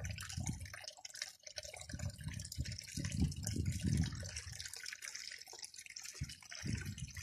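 Water splashing and trickling through a pump-fed highbanker's sluice box, with irregular low bumps over it.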